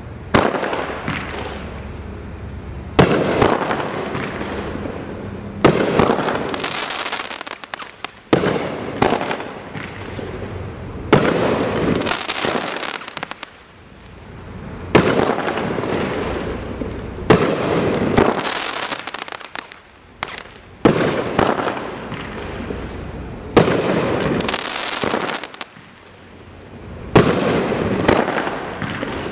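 Baby Boomers 16-shot firework cake firing, one shot every two to four seconds. Each shot is a sharp bang followed by a long, fading crackle from the golden willow and crackling-flower effects.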